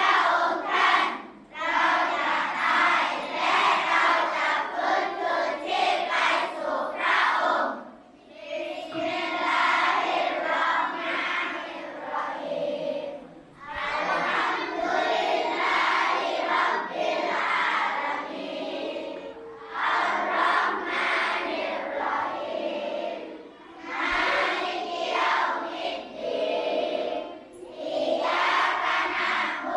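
A group of schoolchildren chanting together in unison, in phrases of a few seconds with short pauses between them.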